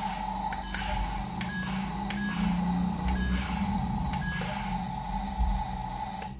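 Small electric motors and gearboxes of a mini RC construction vehicle whining as it moves, the hum stopping and restarting several times, with a few light clicks.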